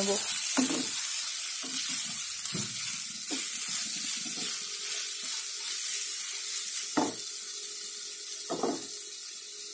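Shredded cabbage and diced vegetables sizzling in masala in a non-stick pan over a medium flame, stirred and scraped with a wooden spatula; a few sharper scrapes stand out, and the sizzle grows quieter toward the end.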